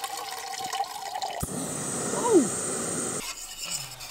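Water squeezed through a squeeze-type filter pours in a steady stream into a metal cookpot. About a second and a half in, it gives way abruptly to a steady hiss with one brief falling tone, and near the end a spoon stirs in the pot.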